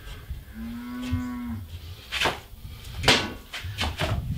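A cow moos once, a single held call lasting about a second. It is followed by two sharp knocks about a second apart.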